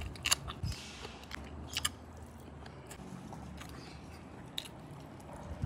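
A person biting into a raw green chili pepper and chewing, with a few sharp crisp bites in the first two seconds, then quieter chewing.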